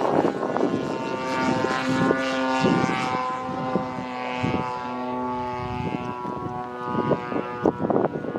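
DLE 40 cc boxer-twin gasoline engine of a large radio-controlled Extra 300 aerobatic plane, muffled by silencers fitted to its stock barrel mufflers, droning steadily as the plane flies overhead. Short rushes of wind noise on the microphone come near the start and near the end.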